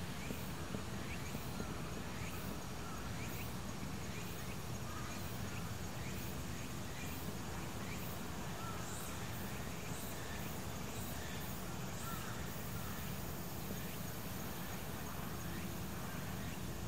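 Outdoor ambience: a steady low background rumble with faint, short bird calls repeating every second or so.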